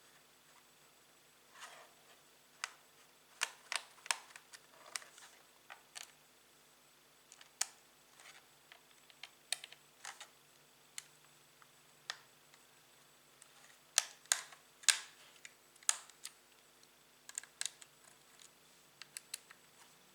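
Irregular sharp clicks, taps and brief scrapes of hands handling a laptop's plastic case and small hard parts, with a faint steady hum underneath.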